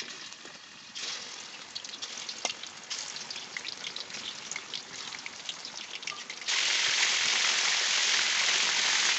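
Marinated stingray pieces frying in hot oil in a kadai: a steady sizzle with scattered crackling pops. About six and a half seconds in it jumps suddenly to a louder, denser sizzle.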